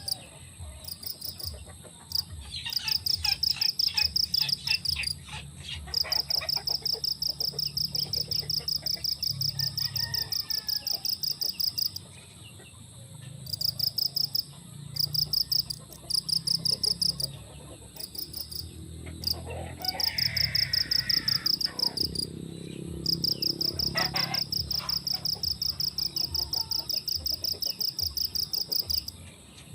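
Insects chirping in rapid pulsed trains lasting a few seconds each, stopping and starting again, over the low rumble of strong wind. A bird calls about two-thirds of the way in.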